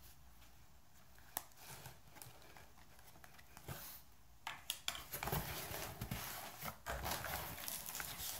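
A few sharp clicks, then from about four and a half seconds in, steady rustling and scraping of cardboard as a cut-open shipping box's flaps are pried up and pulled open by hand.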